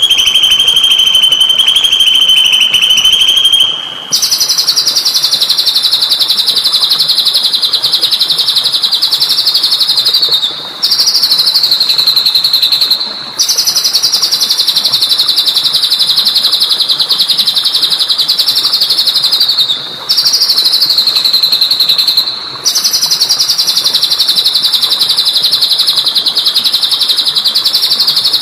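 A songbird's sustained, very rapid buzzing trill, high-pitched, from a bird-training (masteran) recording. About four seconds in it jumps higher and then runs on in long stretches of several seconds with brief pauses between them, each stretch sliding slightly down in pitch at its end.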